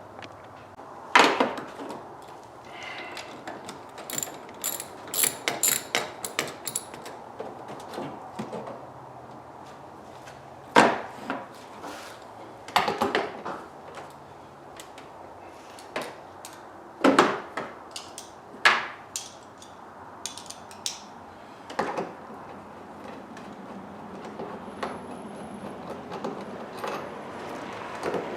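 Hand tools and parts being worked while the stock air-intake box is unscrewed and taken out: quick runs of ratchet-like clicking, with scattered knocks and clunks of parts being handled.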